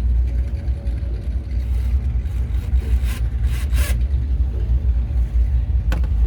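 Power drill boring a pilot hole through a boat's panel for a speaker cut-out, heard as a few short bursts of noise over a heavy low rumble.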